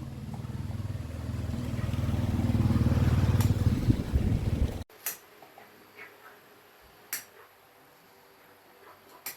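A motor running with a steady low hum that grows louder, then cuts off abruptly just under five seconds in; a few faint sharp clicks follow.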